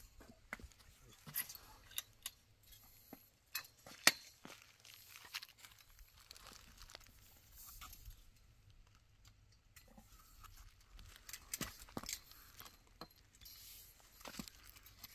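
Footsteps in sandals scuffing and crunching on a gritty concrete slab and loose dirt, with scattered sharp taps and clicks, the loudest about four seconds in.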